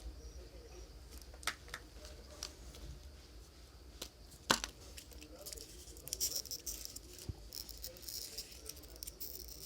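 Handling sounds from small parts and materials during a phone repair: a few sharp clicks and taps, the loudest about four and a half seconds in, followed by several seconds of crinkling, tearing-like rustle such as plastic film or tape being handled.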